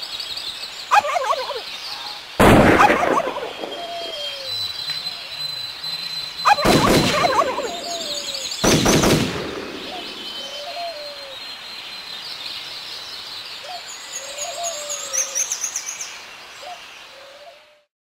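Turkey gobbling among woodland birdsong, with three loud sudden bangs. The sound cuts off just before the end.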